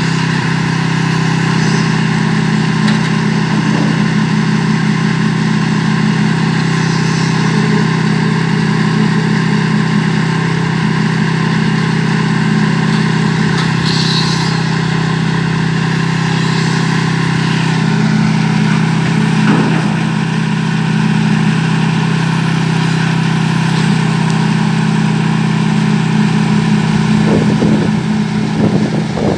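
Engine of a concrete mixer running steadily at constant speed while concrete is poured. There are a few light knocks near the end.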